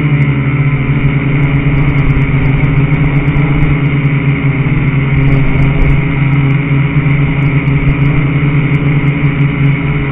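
Quadcopter's electric motors and propellers running in flight, a loud steady buzzing hum picked up by the onboard camera.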